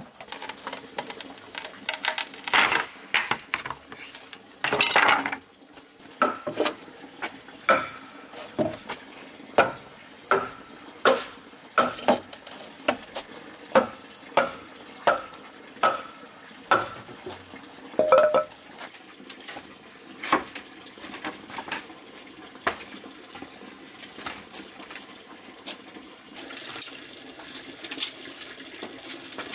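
A series of light knocks and clinks of hard objects, about one a second, some with a short ring, thinning out in the second half. A steady high-pitched whine runs underneath.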